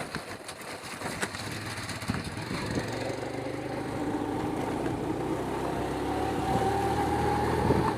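A vehicle's engine running steadily, slowly getting louder with its pitch creeping up a little over the last few seconds.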